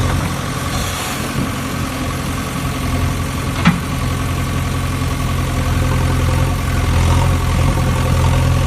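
Diesel engine of a JCB excavator running steadily, with a single brief knock about three and a half seconds in.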